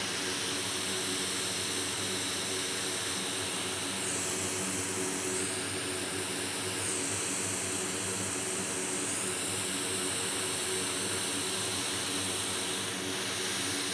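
Hot air rework station blowing a steady stream of hot air onto a logic board to desolder a large shorted capacitor. The high whine shifts twice in pitch, about four and seven seconds in.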